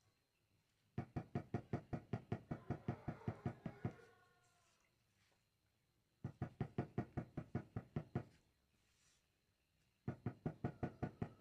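Rapid tapping on a floor tile, three runs of about seven knocks a second with short pauses between. The tapping shakes thin cement slurry down through the joints to fill the hollow beneath the tile.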